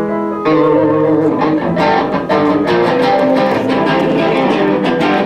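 Instrumental music led by plucked guitar notes and chords, with a change in the playing about half a second in.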